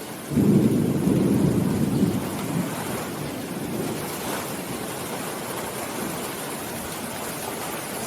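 Steady rain falling, with a sudden deep rumble that starts about a quarter second in, is loudest for about two seconds and then fades.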